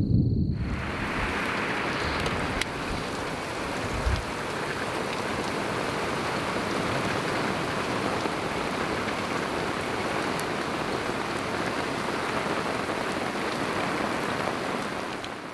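Heavy rain falling steadily in a thunderstorm, with one brief low thump about four seconds in. The rain fades out at the end.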